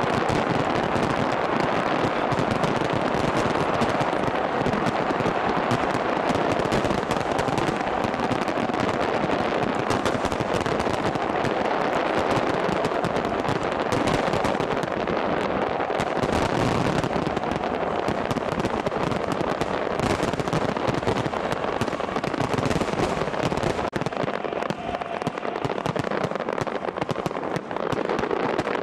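Large fireworks display: many shells and low fountains going off at once in a dense, unbroken crackle of bangs and reports, easing slightly near the end.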